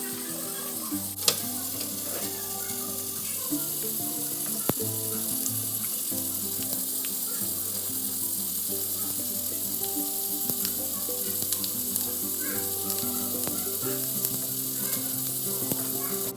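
Food sizzling as it fries in hot oil in a pan, a steady hiss with a few sharp clicks, under background music with sustained notes and a bass line.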